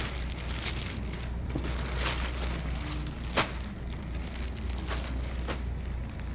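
Plastic courier mailer and clear plastic polybag rustling and crinkling as they are handled, with a few sharper crackles, the loudest about three and a half seconds in.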